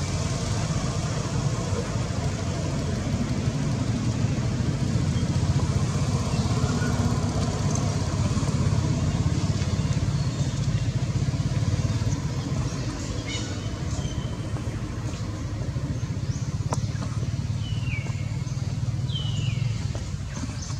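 Steady low rumble of a running motor vehicle engine, with a few short, falling high-pitched chirps in the second half.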